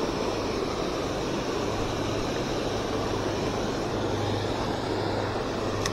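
Steady rush of water spilling over a low stone dam.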